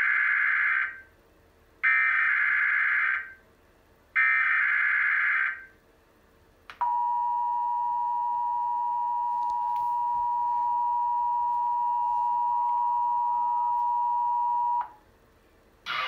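Emergency Alert System Required Monthly Test sounding from a TV: three bursts of the SAME digital header, each about a second and a half, then the two-tone attention signal (853 and 960 Hz together) held steady for about eight seconds and cut off sharply.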